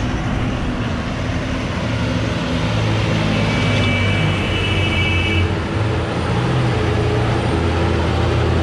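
Heavy trucks' diesel engines running steadily as they pass on a steep mountain road, with tyre and road noise. A high, steady squeal sounds for about two seconds in the middle.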